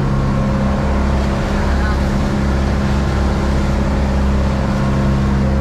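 Engine of a motorized outrigger boat running steadily while under way, a constant low drone with a hiss of wind and water over it.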